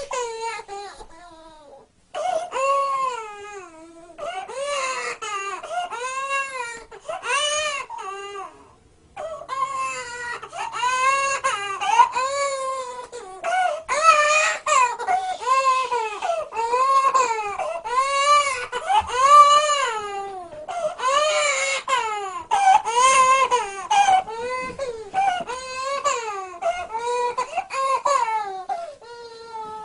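Toddler girl crying, one cry after another, each rising and falling in pitch, with short breaks about two seconds in and about nine seconds in.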